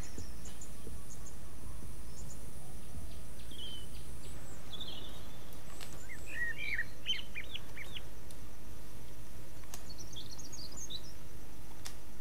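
Small birds chirping in short scattered calls, busiest about halfway through and again near the end, over a steady background hum and hiss.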